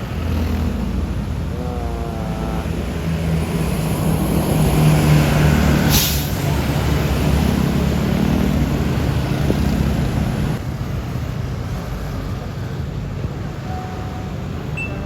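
A heavy bus engine running as it passes, its low hum swelling to its loudest about five seconds in, with a short sharp hiss about six seconds in.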